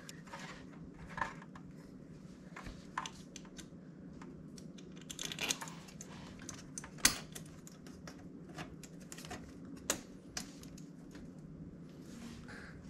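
Irregular light clicks and taps of a small bolt and nut being fed by hand through the mount of a metal mesh oil cooler guard, with a sharper click about seven seconds in and another near ten seconds.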